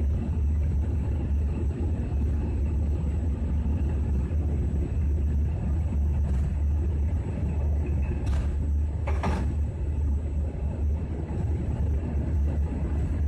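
A passenger train running along the track, heard from its rear end: a steady low rumble of wheels on rail, with two short knocks a little over eight and nine seconds in.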